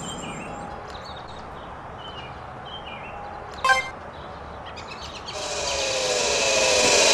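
A few faint bird chirps over outdoor background, and a short sharp blip a little past halfway. From about five seconds in, a dubbed power-up sound effect swells in, a hissing whir with falling tones that grows steadily louder: the future computer activating and the transformation beginning.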